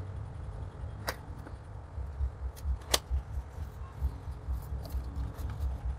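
Cardboard retail box being opened by hand: the end flap pulled open and the inner packaging slid out, with light rustling and scraping and two sharp snaps, about a second in and about three seconds in, over a low rumble.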